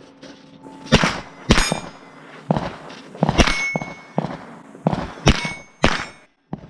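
Scoped AR-style rifle firing a string of about eight shots at steel plates, with the steel ringing briefly after several of the hits.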